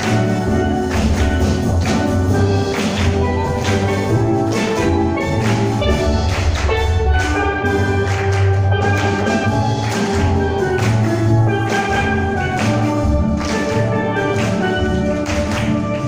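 Steel drum ensemble playing: many steel pans struck with sticks, with bass pans sounding low notes under the melody and a steady beat of regular strikes.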